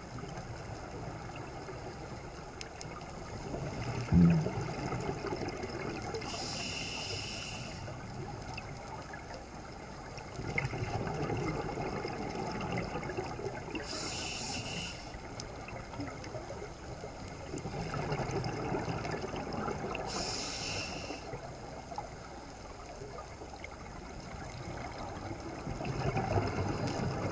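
Scuba breathing through a regulator heard underwater: a rumbling, bubbling exhale followed by a short hissing inhale, repeating about every six to seven seconds. A single knock about four seconds in.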